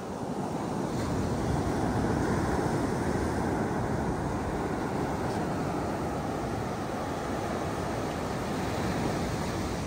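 Ocean surf breaking and washing up a sandy beach: a steady rush of waves that swells a little in the first couple of seconds, then holds.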